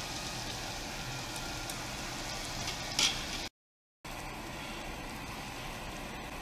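Meat and shrimp sizzling steadily on a tabletop grill plate, with faint crackles and a sharp click about three seconds in. The sound cuts out for half a second at an edit, then the sizzling resumes.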